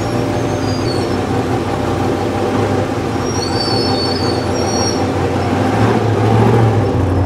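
Loud engine of an off-road race vehicle running at low speed, heard from inside its open cab: a steady low drone that swells slightly near the end. A few brief high squeals sound about halfway through.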